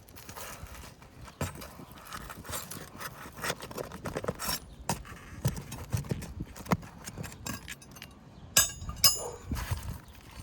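Metal roofing tools prying and scraping at asphalt shingles and their nails, with irregular scrapes and knocks. Two sharp ringing clinks come near the end.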